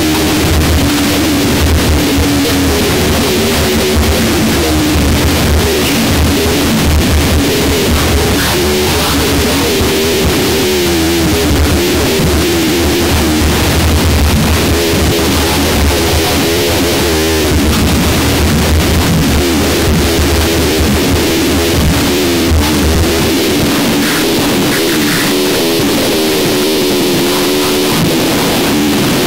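Harsh noise music: a loud, unbroken wall of distorted noise with wavering, warbling drones in the low middle. A heavy low rumble underneath drops out about 23 seconds in.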